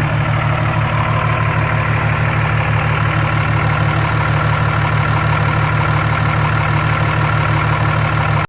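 2004 Dodge Ram's 5.9 Cummins inline-six turbodiesel idling steadily with an even low pulse, running on newly replaced injectors.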